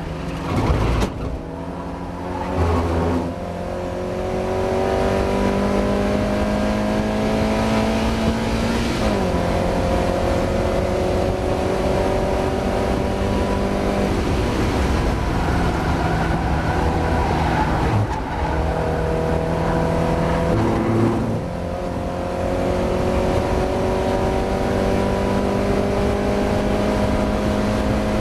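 Mazda MX-5 race car engine pulling hard under acceleration. Its note rises steadily through each gear and drops in pitch at each upshift, several times over.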